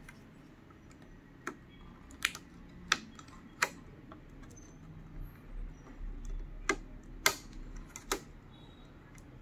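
Small sharp plastic clicks from handling the flat ribbon cable and its connector on an LED TV's mainboard as the panel cable is worked loose: about seven irregular clicks, four in the first half and three more a few seconds later.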